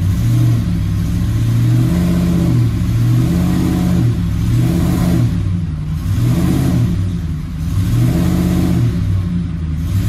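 Ford 5.4-litre three-valve Triton V8 revving in gear against the brakes in a brake-torque (stall) test, its speed rising and falling in repeated swells. The load is applied to stress the ignition and draw out a cylinder 2 misfire.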